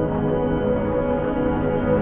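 Ambient background music: soft sustained tones held steady.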